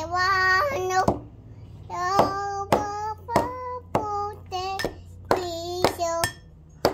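Toddler singing wordlessly in short, high-pitched sung phrases, with sharp knocks in between, about eight of them.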